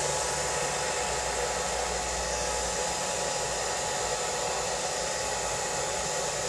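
Philips handheld hair dryer running steadily, blowing air through wet hair.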